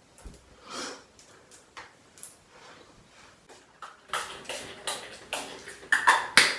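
Toiletries and small objects handled on a bathroom counter: scattered light clicks and rustles, then a quick run of louder sharp sounds over the last two and a half seconds.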